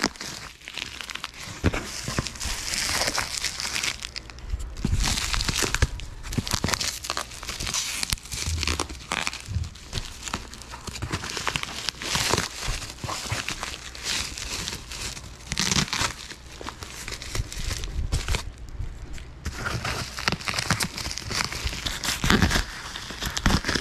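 Bubble wrap and plastic packaging being crinkled and torn open by hand, an irregular run of rustles and sharp crackles with a couple of short pauses.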